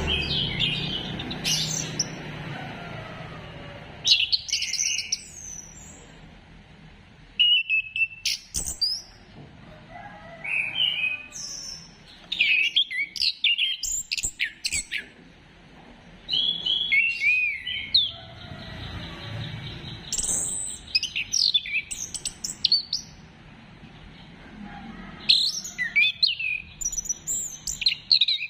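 Orange-headed thrush singing: a run of short, varied whistled phrases in bunches, broken by pauses of a second or two.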